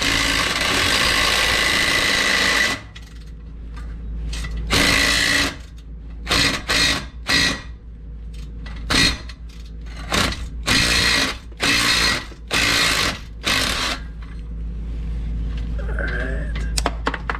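Power wrench running in repeated bursts of about half a second to three seconds, the longest at the start, undoing the spring-clamp bolts at the exhaust's J-pipe joint.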